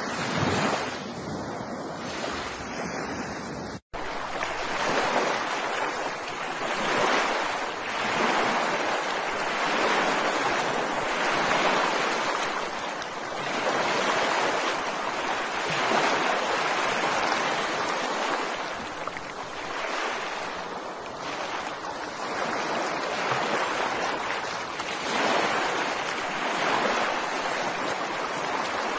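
Ocean surf washing on a shore, a steady rushing that swells and ebbs every few seconds. The sound cuts out for an instant about four seconds in.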